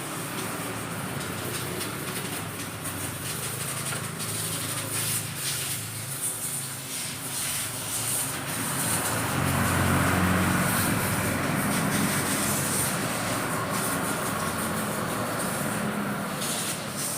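A motor vehicle engine running, growing louder for a few seconds about halfway through, with scattered clicks and knocks.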